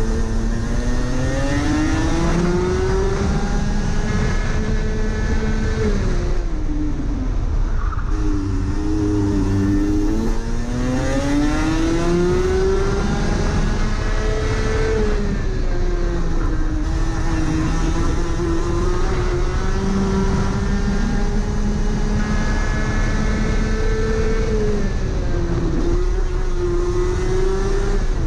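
Rotax Max 125 cc single-cylinder two-stroke kart engine at racing speed, its pitch climbing along the straights and dropping away into the corners, several times over.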